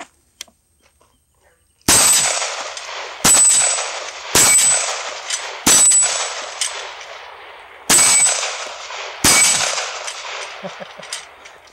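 Six pistol shots from a 9mm 1911, each trailing off in a long echo. They come about a second apart, with a longer pause after the fourth.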